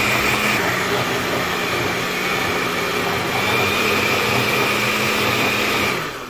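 Electric countertop blender running steadily with a steady hum and high whine as it blends a liquid flan batter. It is switched off near the end, and the motor winds down with its pitch falling.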